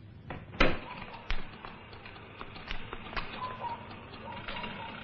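A series of irregular clicks and knocks, the loudest about half a second in, with a faint steady tone joining in the second half.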